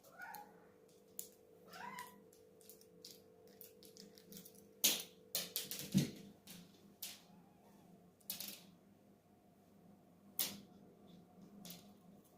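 A domestic cat gives two short rising meows in the first two seconds, then a scattered run of sharp clicks and ticks follows.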